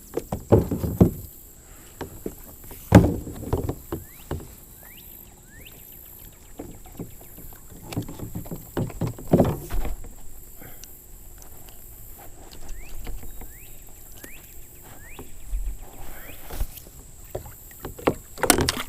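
Irregular thumps and knocks in a kayak, the loudest about three seconds and nine and a half seconds in, as a just-landed smallmouth bass is handled aboard.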